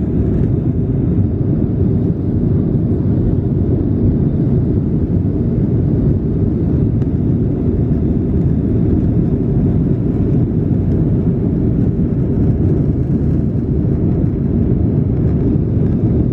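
Jet airliner in flight, heard inside the passenger cabin: a steady, loud low rumble of engines and airflow that does not change.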